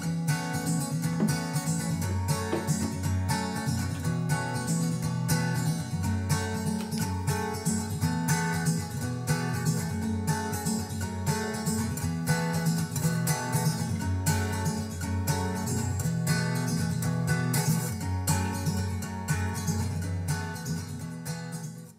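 Background music with a quick, steady pulse of plucked notes, fading out just before the end.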